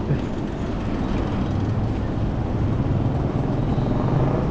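Street traffic noise with a steady low engine hum from a motor vehicle.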